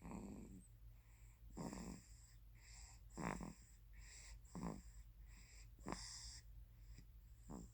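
A three-month-old baby snoring faintly in sleep: six short snoring breaths, about one every second and a half.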